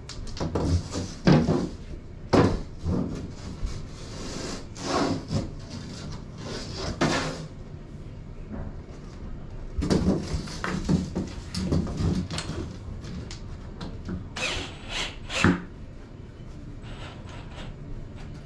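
Large wooden boards being handled and fitted together: irregular knocks of wood on wood, with scraping and sliding as pieces are pushed into place. The sharpest knocks come about a second and a half in, about two and a half seconds in, and near the end.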